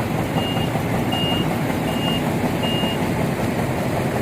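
Heavy machine's backup alarm beeping at a steady pace, four short beeps at one high pitch that stop about three seconds in, over the continuous running of a diesel engine.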